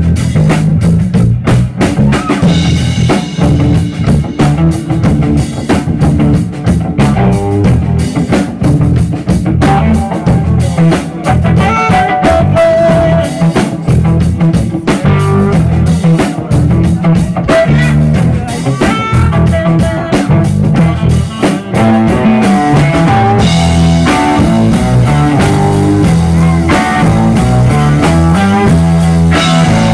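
Live instrumental trio of electric guitar, electric bass and drum kit playing loudly.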